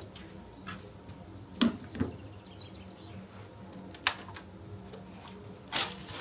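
Four short, sharp knocks and clicks of objects being handled, spread out over a few seconds, over a faint steady room background.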